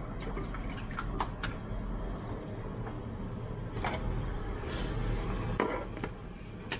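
Scattered light clicks and taps, a few in the first second and a half and a cluster near the end, over a steady low hum.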